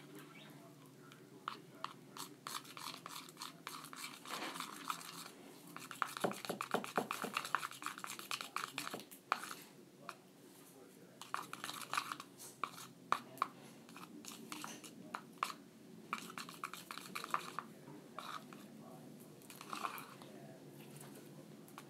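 A craft stick stirring and scraping a sticky white slime mixture in a plastic bowl: irregular clicks, scrapes and wet squelches, busiest a few seconds in.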